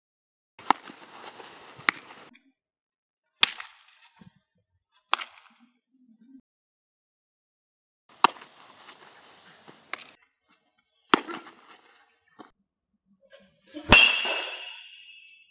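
Baseballs smacking into a catcher's mitt, about seven sharp pops spread out with gaps between them. Near the end a metal bat hits a ball with a loud ringing ping.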